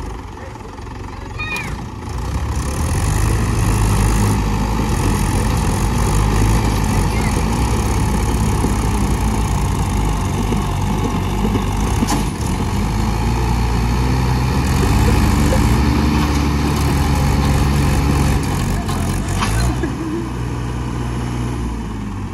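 Mahindra 415 and 575 tractor diesel engines working hard against each other in a chained tug-of-war pull. The engine noise swells about two seconds in and holds loud and steady, with a rise and fall in engine pitch about two-thirds of the way through.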